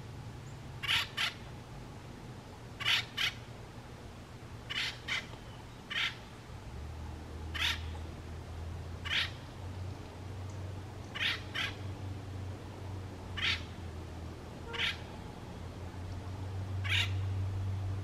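Male acorn woodpecker calling: about ten short calls, several in quick pairs, spaced every one to two seconds over a steady low hum.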